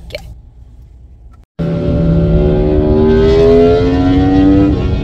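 A car engine accelerating, starting suddenly about a second and a half in. Its pitch rises steadily, then changes abruptly near the end.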